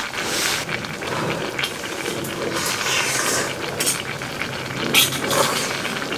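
Cooking: metal utensils clinking and scraping in a pot or pan over a steady sizzling hiss, with a few sharp clinks.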